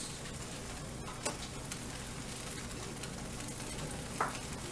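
Egg in the hole (buttered bread with an egg in its centre) frying in a pan, sizzling steadily, with a couple of faint ticks.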